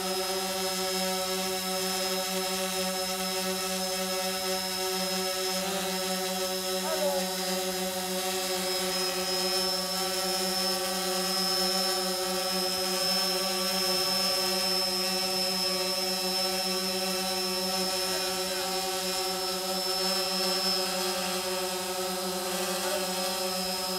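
DJI Phantom 4 Pro quadcopter hovering close by: the steady, high-pitched hum of its four propellers, holding an even pitch with a thin whine on top.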